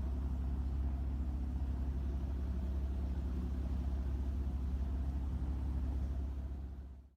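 Boat engine running steadily with a deep low rumble, fading out just before the end.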